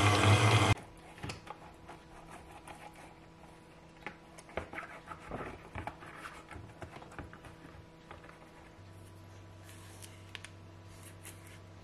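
Electric stand mixer beating thick bread dough, its motor running steadily and switched off under a second in. Then faint scratching and rubbing with a few light knocks as a hand rubs the inside of a silicone loaf pan, and a low steady hum comes in near the end.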